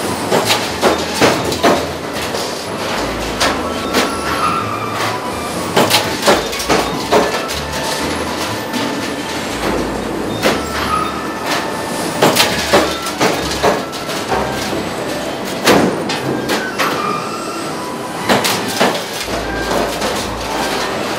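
Automated tandem line of eccentric stamping presses running: a steady industrial machine noise with clusters of sharp metallic clanks and bangs every few seconds as the presses stroke and steel body panels are moved between the dies.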